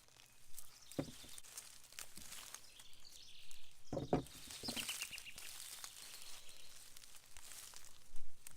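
Potatoes being dug out of garden soil by hand: irregular rustling and scraping of soil and potato plants, with a couple of soft thumps. A short high chirp, likely a bird, comes about five seconds in.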